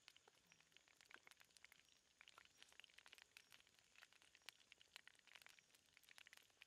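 Faint, continuous crackling and popping of hot oil as chicken legs deep-fry in a wok.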